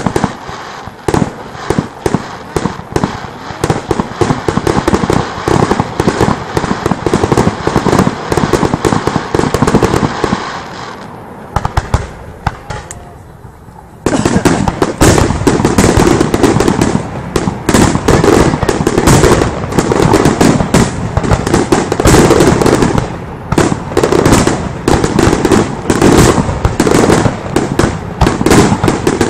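Fireworks display: aerial shells bursting in a dense, rapid stream of bangs and crackling. Around eleven seconds in the bursts thin out and die down, then a few seconds later they start up again suddenly and keep coming thick and fast.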